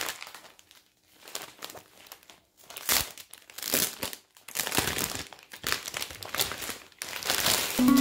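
A clear plastic saree bag crinkling in the hands as a silk saree is handled and slid out of it, in irregular bursts with short pauses between them.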